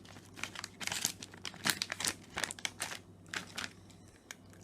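Plastic treat packet crinkling as it is handled: a run of irregular crackles that dies down about three and a half seconds in.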